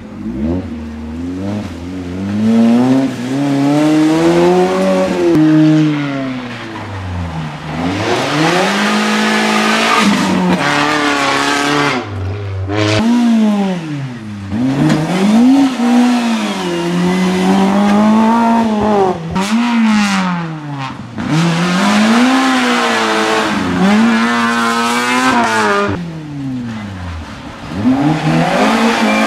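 Small rally cars, a Suzuki Swift and Fiat Seicentos, driven hard one after another, engines revving high, dropping and climbing again through gear changes several times over.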